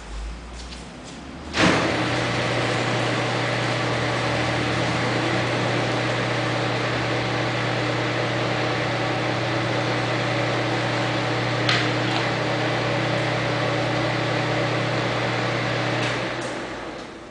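PM-1340GT metal lathe switched on, its spindle and gearhead starting up suddenly and then running at a steady speed with a constant hum and whir. One brief click comes past the middle, and near the end the machine winds down to a stop.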